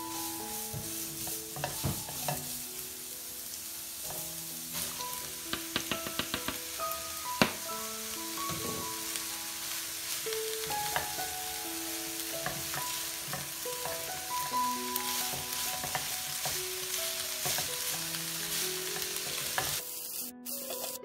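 Julienned carrots and Chinese chives sizzling in a hot nonstick wok as a spatula stirs and tosses them, with scattered clicks and scrapes of the spatula against the pan, thickest around six to seven seconds in. The sizzle cuts off just before the end.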